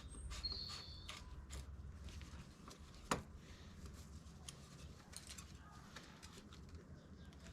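Faint metallic clicking of a crank puller being threaded and tightened into a bicycle's square-taper crank arm: a quick run of even clicks at first, one sharper click about three seconds in, then scattered ticks.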